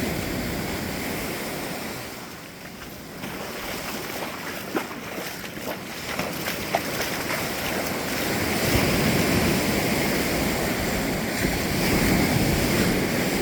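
Wind rushing over the microphone with the wash of water, swelling louder for the second half, with a couple of faint clicks.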